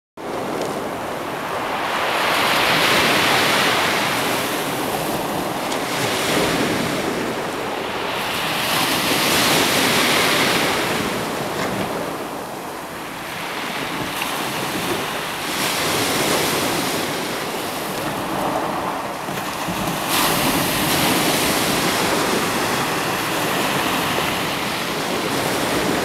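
Small sea waves breaking and washing over a shingle beach, the surf swelling and fading every several seconds, with wind on the microphone.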